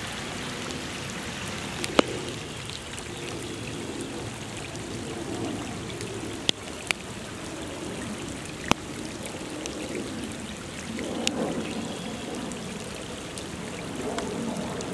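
Floodwater running and pouring steadily, with a few sharp clicks scattered through it.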